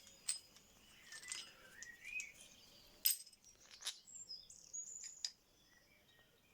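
Faint birdsong chirping, with a few sharp clicks and clinks of small steel body-mount parts being handled; both die away about a second before the end.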